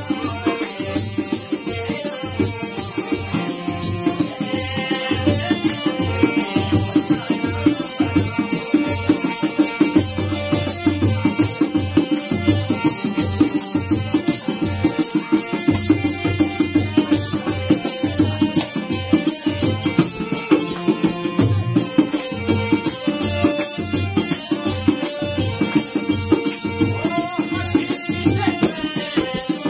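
Bhaderwahi folk dance music: a steady drum beat under a fast, continuous rattling percussion, with a melody line on top.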